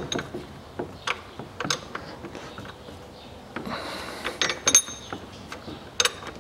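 Ratchet wrench clicking in short, irregular strokes while loosening the 15 mm nut on the air-conditioning line fitting at the compressor, with a quick run of clicks about four seconds in.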